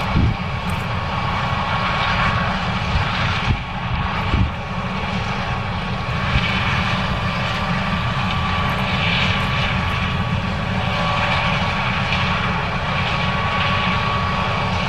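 John Deere S770 combine harvester running while harvesting corn: a steady engine and machinery drone with a deep rumble and a constant thin whine, and a few knocks in the first half.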